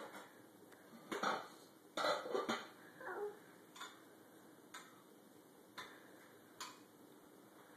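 A toddler's brief mouth and throat noises while eating grapes in the first three seconds, then four faint light clicks about a second apart as grapes are handled on a plastic high-chair tray.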